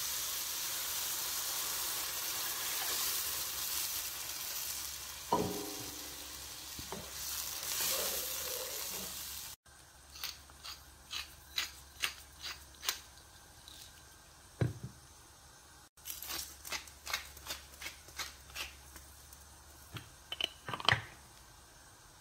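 Chicken pieces and mushrooms sizzling in a nonstick frying pan with a steady hiss while a spatula stirs and knocks against the pan. Then comes a quieter run of short crunchy clicks, a pepper mill being twisted over the simmering cream sauce.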